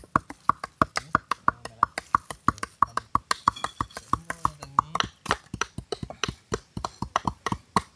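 Several cleavers rapidly chopping mutton into mince on wooden tree-stump chopping blocks: quick, uneven, overlapping knocks at several strikes a second.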